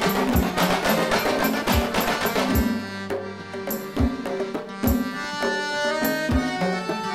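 Malay zapin music. Hand drums play a dense, fast rhythm that drops away about two and a half seconds in, leaving a melody in held notes over a regular low drum stroke.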